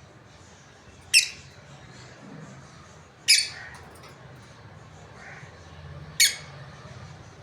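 Lovebirds giving three short, shrill squawks, spaced two to three seconds apart, over a faint low hum.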